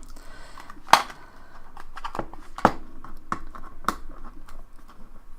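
Hands working at product packaging: a handful of sharp clicks and taps, the loudest about a second in, over soft rustling and scraping as a part of the box is eased off.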